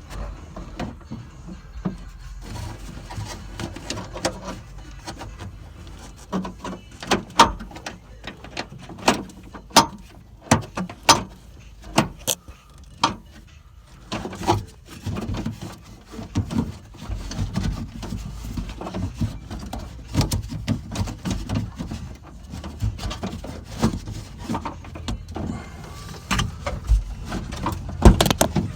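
Irregular clicks, knocks and rattles of hands and tools working at a car door's latch and lock mechanism while the door is stuck shut, with a louder knock near the end.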